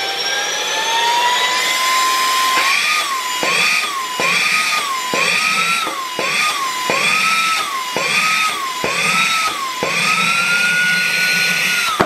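A mini handheld vacuum-blower's motor runs with a high whine while its suction holds up a box of about 400 g. From a few seconds in, the pitch dips and recovers about nine times as the motor is loaded. Near the end the motor is switched off and cuts out sharply.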